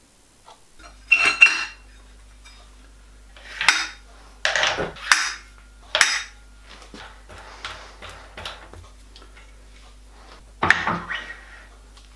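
Steel parts of a horizontal milling machine's arbor setup clanking and clinking as they are handled and fitted: the arbor with its slitting saw and the cast arbor support bracket. It comes as a handful of sharp metallic knocks with quieter scrapes between them.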